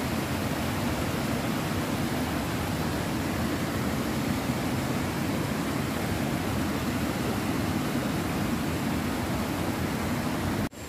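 Steady rushing noise of flowing river water. It cuts off abruptly just before the end.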